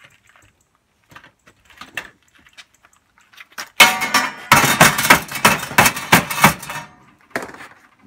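A broom head being shoved into a microwave oven: a loud clatter of scraping plastic bristles and the rattling turntable and cavity lasting about three seconds, after a few faint clicks of the door being opened.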